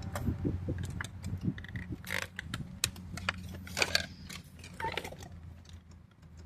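Scattered small clicks and light knocks of hands handling small parts and tools, with a steady low hum underneath.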